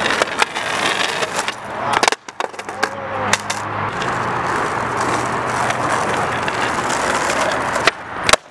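Skateboard wheels rolling steadily on rough asphalt, broken by several sharp clacks of the board striking the ground. Near the end comes a sharp pop as the board is kicked up into a flip.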